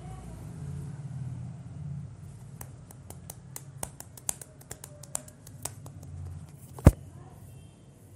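A run of light, irregular clicks lasting about three seconds, then one single louder click, over a low steady hum.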